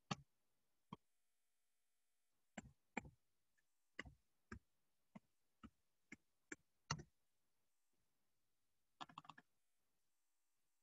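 Near silence broken by a dozen or so faint, sharp clicks at irregular intervals, with a quick run of several clicks near the end.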